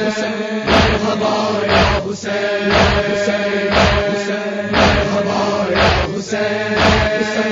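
Men chanting a nauha, a Shia lament, in held, drawn-out notes, with a sharp beat about once a second: the matam chest-beating that keeps time to the lament.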